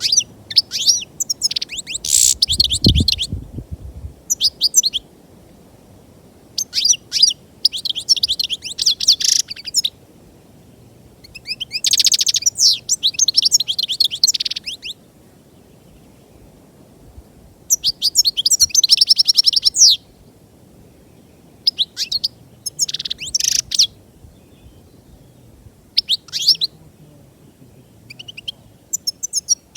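European goldfinch singing, fast twittering phrases in about seven bursts with short pauses between them. A brief low thud about three seconds in.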